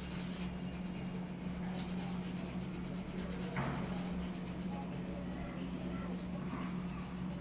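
Red colour pencil scratching on a paper cutout in quick, repeated back-and-forth strokes as a small circle is shaded in, over a steady low hum.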